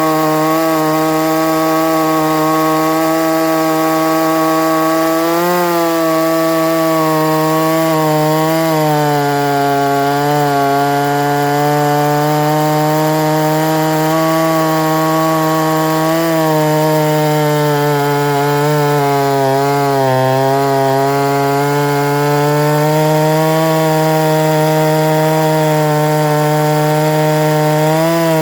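Solo 670 two-stroke chainsaw with a 42-inch bar cutting steadily through a hardwood log at full throttle. Its pitch sags a little and recovers as the chain bogs under load, most noticeably about ten seconds in and again around twenty seconds in.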